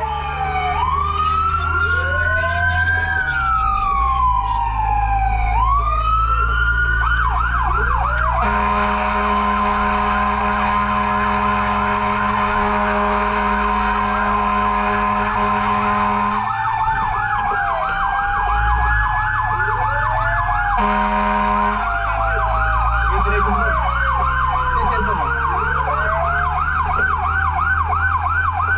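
Fire truck sirens sounding on a run to a fire. Several slow wails overlap at first, then switch to a fast yelp. The yelp is broken by a steady horn blast of about eight seconds and a short one about a second long, over the low rumble of the truck's engine.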